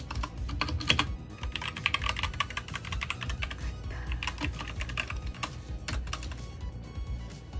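Fast typing on a Royal Kludge RK68 mechanical keyboard with red linear switches: a continuous, uneven run of key clacks. Background music runs underneath.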